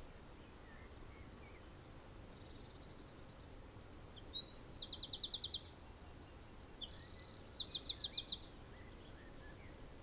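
A songbird sings one song of about four and a half seconds, starting about four seconds in. It opens with a rapid high trill of repeated notes, runs into a busier middle phrase and ends with a second fast trill. Fainter, shorter trills from a more distant bird come earlier, over a steady outdoor background hiss.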